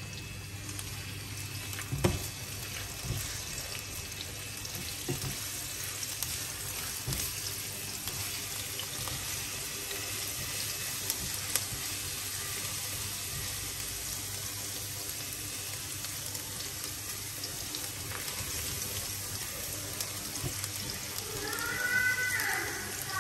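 Minced garlic sizzling steadily in hot oil in a nonstick pan, with an occasional click of the spatula against the pan as it is stirred. A few short high-pitched squeaky sounds come near the end and are the loudest part.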